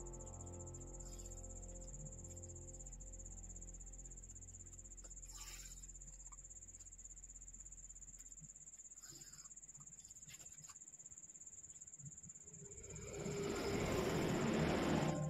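Short soft swishes, then a longer, louder rustle near the end, as sewing thread is drawn through the blazer sleeve fabric during hand-stitching of a blind hem. Under it runs a continuous high-pitched insect trill, and faint background music fades out in the first half.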